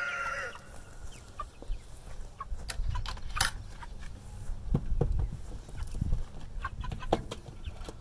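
Young white meat chickens calling and clucking in a pasture pen, with a short call right at the start, a few brief chirps and scattered sharp clicks and knocks over a low rumble.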